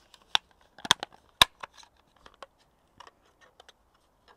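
Plastic lid of a Hydria fountain's rechargeable battery pack being worked and pressed onto its housing: a string of sharp plastic clicks and knocks, the two loudest close together about a second in.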